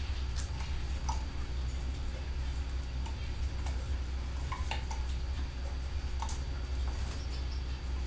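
Canaries in an aviary giving scattered short chirps, with light clicks and ticks among them, over a steady low rumble.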